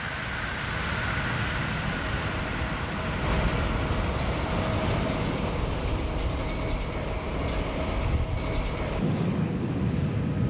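Steady vehicle running noise: a continuous low rumble with faint steady tones above it, and no speech or music.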